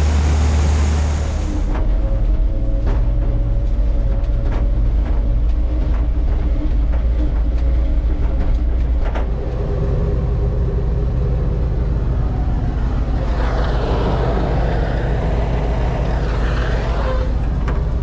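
A heavy farm vehicle's engine running steadily with a low, constant hum. A louder rushing noise swells over it for a few seconds near the end.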